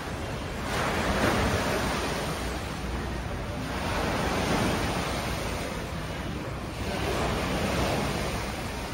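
Swimming pool water sloshing in waves, stirred up by an earthquake, rising and falling in swells about every three seconds.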